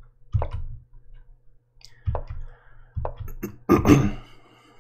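About six short, sharp clicks at uneven intervals, one early, one about two seconds in and a quick cluster near the end, made while chess moves are stepped through on a computer analysis board.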